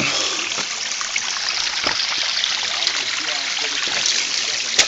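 Small rocky stream running and trickling over stones, a steady rush of water, with a few sharp knocks, the loudest near the end.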